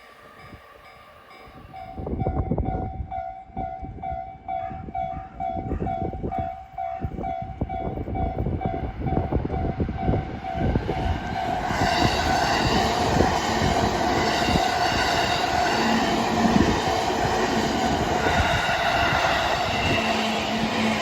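Train passing a Japanese level crossing: the crossing's warning bell rings about twice a second while the wheels clatter over rail joints. About twelve seconds in, the train's rolling noise grows louder and fuller.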